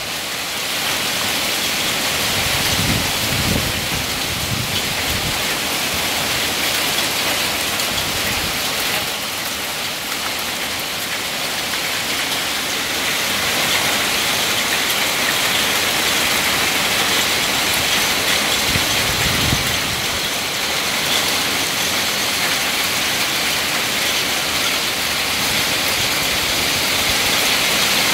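Heavy rain mixed with small hail falling on a lawn and garden foliage: a steady, dense hiss, with a couple of brief low rumbles, one early on and one about two-thirds of the way through.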